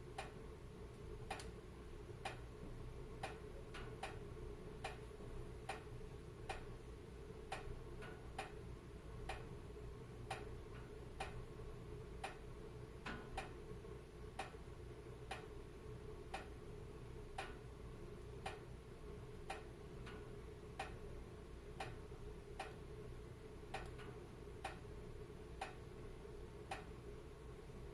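Fireplace ambience: a steady low rumble of burning fire with sharp clicks at an even pace, a little more than one a second.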